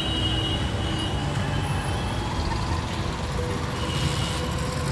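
Steady rumble of motorcycle and scooter engines and road traffic on a busy fuel-station forecourt, with a thin high whine that fades out about a second in.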